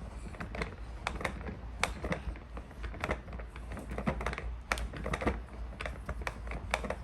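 Plastic Play-Doh cement truck toy being twisted and pressed by hand: a steady run of quick, irregular light plastic clicks and taps.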